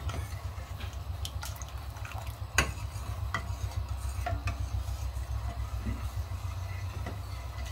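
Steel ladle stirring thickened milk in a stainless steel kadai, knocking and scraping against the pan now and then, with a sharper knock about two and a half seconds in. A steady low hum runs underneath.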